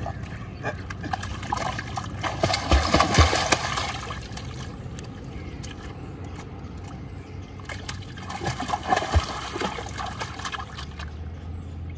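Shallow river water splashing and sloshing at the bank, in two louder bouts: about two to four seconds in, and again around nine seconds.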